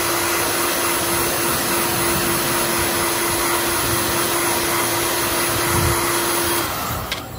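Electric heat gun running steadily, its fan blowing with a constant hum, then cutting off near the end.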